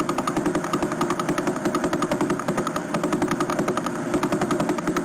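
The Vela pulsar's radio signal converted into audio: a rapid, regular ticking, about eleven pulses a second, each tick marking one rotation of the dead star, over a steady hum.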